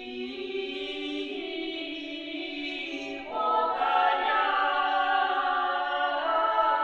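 A small women's vocal ensemble singing a cappella in sustained, close harmony, the voices swelling louder and moving higher about three seconds in.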